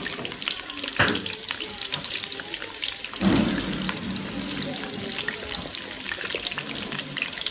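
Potato fries sizzling and crackling in oil in a karahi, a steady hiss full of fine pops; the oil is not yet fully hot. A sharp knock comes about a second in, and a louder stir of the wire skimmer through the fries about three seconds in.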